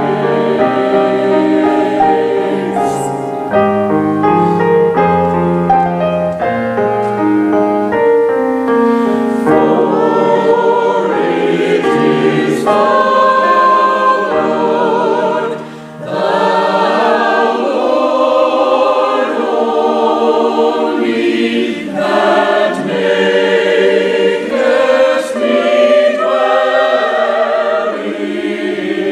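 Church choir singing in several-part harmony, with a brief break between phrases about halfway through.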